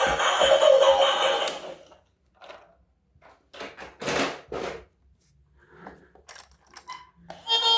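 Background music that cuts off about two seconds in, followed by a string of short knocks and rustles in a small room, the loudest about four seconds in, before music starts again near the end.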